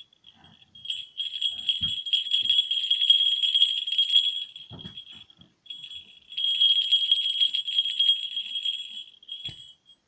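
A pair of small 18 mm falconry bells shaken by hand in two bouts of a few seconds each, giving a bright, high, sustained jingling ring with a short pause between the bouts.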